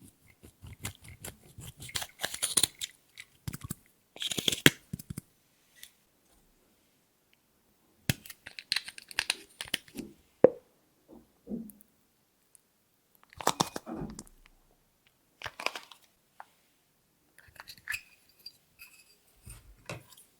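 Close-up crackling and crunching handling sounds as slime and makeup are worked by hand. They come in short irregular bursts with brief silent pauses between them.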